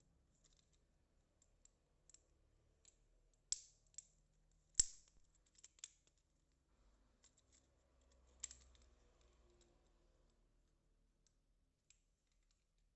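Faint, scattered clicks and snaps of a microSD card's plastic packaging being handled and opened. The two sharpest snaps come a little over a second apart, about a third of the way in, and a weaker one follows a few seconds later.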